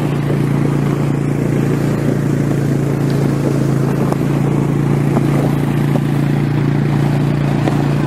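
Quad ATV engine running at a steady speed as it tows a sled by rope over snow, with a constant hiss and occasional light clatter from the sled sliding behind it.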